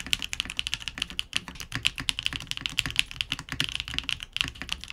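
Fast, steady typing on a Keebfront Vanguard 65 mechanical keyboard fitted with Keebfront Doom long-pole switches: a continuous run of crisp keystroke clacks, several a second.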